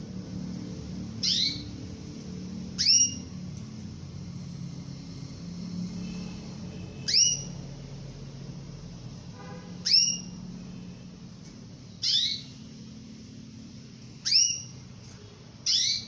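Female canary giving contact calls to a male: seven short, sharp chirps, each sliding quickly down in pitch, spaced a couple of seconds apart, over a steady low hum.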